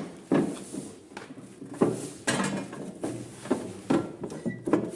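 Irregular knocks and clatter, about six in all, as band saw parts and packing are handled and set down during unpacking.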